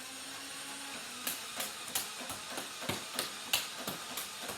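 Motorized Nerf blaster whirring, then firing in a run of sharp clicks at about three a second.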